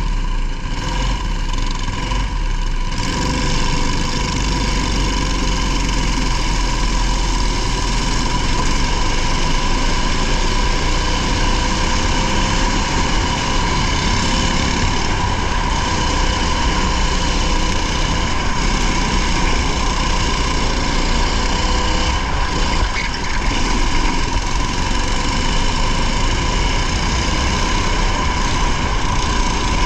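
Race car's engine running steadily, heard from the onboard camera inside the car.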